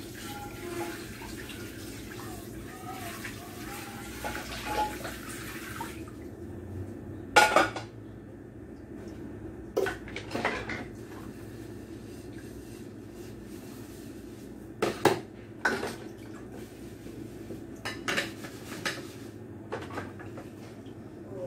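Dishwashing at a kitchen sink: water runs from the tap for the first several seconds and stops about six seconds in. After that come scattered sharp clinks and knocks of dishes and cutlery being handled.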